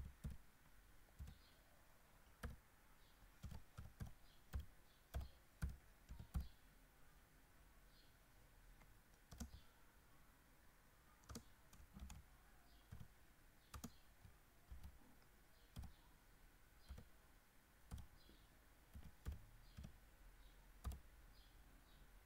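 Faint keystrokes on a computer keyboard: slow, irregular key clicks, roughly one or two a second, as text is typed.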